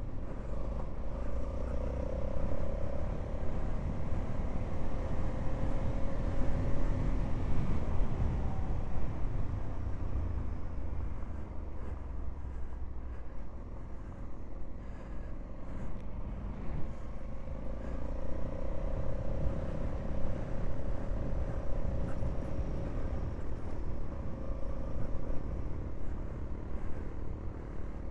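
Honda Africa Twin adventure motorcycle riding along a gravel track, its engine running at a steady cruising pace under heavy low wind rumble on the microphone. The engine note stands out more at the start and again in the second half.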